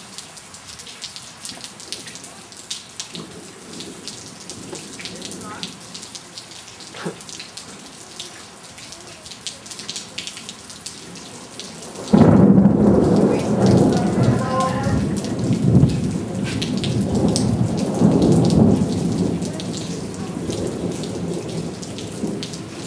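Heavy rain falling steadily, with scattered drops ticking close by. A little over halfway in, a sudden loud clap of thunder breaks in and rolls as a low rumble for about ten seconds, slowly fading.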